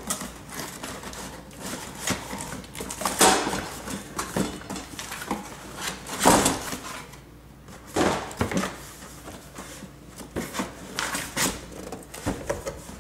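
Box and packaging being opened and handled: irregular rustles, scrapes and light knocks, with a louder handling noise about three seconds in and again about six seconds in.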